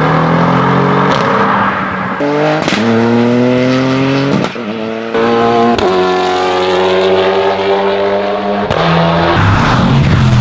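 Competition car engine accelerating hard through the gears: its pitch climbs and then breaks at each gear change, several times, with short sharp cracks of exhaust pops at some of the changes.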